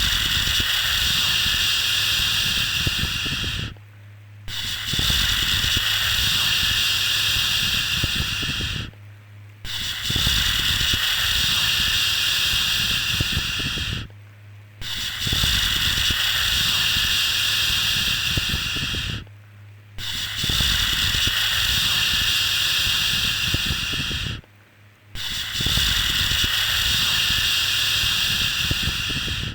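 Repeated long 'shhh' shushing sound for soothing a baby. Six shushes of about four and a half seconds each, with short pauses under a second between them, over a faint steady low hum.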